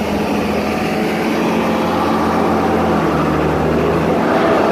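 Tata Hitachi crawler excavator's diesel engine running steadily under hydraulic load as the arm is raised. Its steady low note drops slightly about three seconds in.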